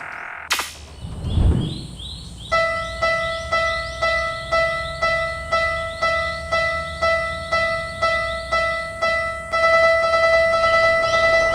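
Cartoon level-crossing alarm: an electronic "kan-kan" bell that starts a couple of seconds in and rings about twice a second, then turns into a faster, almost continuous ringing near the end. Just before the bell starts there is a sharp whoosh and then a low thud.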